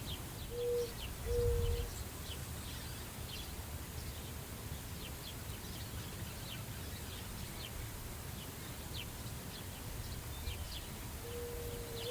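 Prairie wind running steadily across the grass, with small birds chirping over and over in short, high, falling chirps. A few short squeaky tones come twice near the start and once just before the end.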